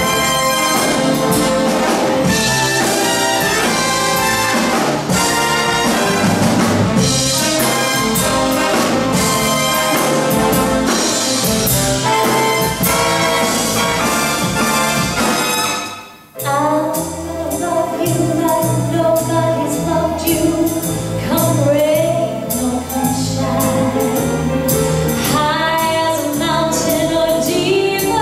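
Symphony orchestra with prominent brass playing an up-tempo introduction to a song. It breaks off abruptly about halfway through, then resumes as a woman sings with the orchestra through a handheld microphone.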